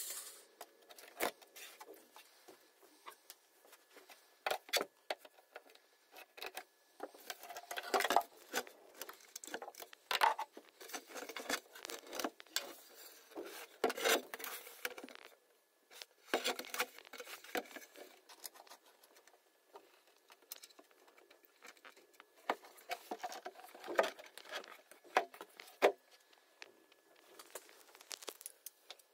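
Handling noise as a 15-inch woofer is fitted into a speaker cabinet: irregular faint taps, clicks and short scrapes of the driver's metal frame, screws and tools against the cabinet, with a few louder clusters along the way.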